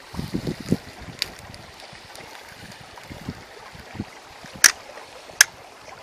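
Wind hissing across the microphone, with low rumbles in the first second and two sharp clicks about a second apart near the end.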